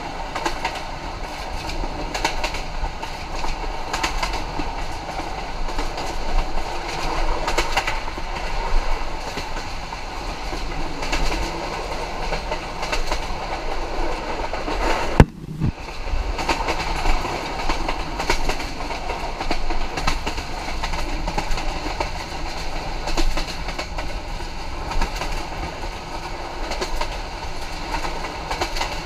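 Passenger train running at speed, heard from on board: a steady rumble with the wheels clacking over rail joints. About halfway through comes a single sharp knock, followed by a brief drop in the noise.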